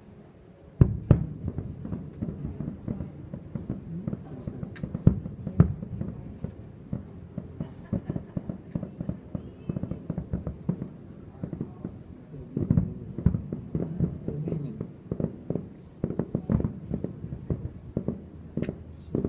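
Fireworks display: a loud bang about a second in, then a rapid, uneven string of booms and crackles from bursting shells.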